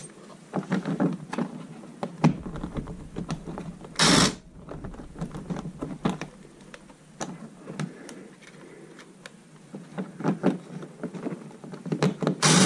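Cordless impact driver running in short bursts as it drives screws into a snowmobile's plastic side panel: a brief burst about four seconds in and a longer, louder run of about a second near the end. Between the bursts, clicks and knocks of the screw, bit and plastic panel being handled.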